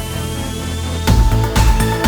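Electronic background music. A rising sweep builds over a thinned-out beat, then the full beat drops back in about a second in.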